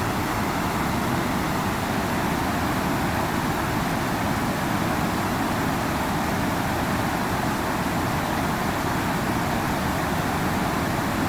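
River water flowing with a steady rushing noise.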